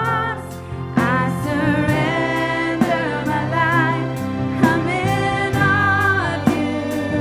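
Contemporary Christian worship song: voices hold long notes with vibrato over a band with a steady drum beat.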